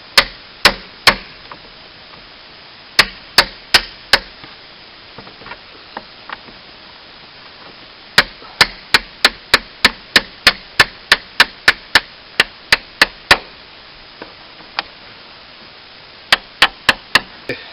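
Hammer blows driving a seized pivot pin out of a mini-excavator's blade-ram mount, using another pin as a drift. Sharp single strikes come in short groups, with a long steady run of about three blows a second in the middle.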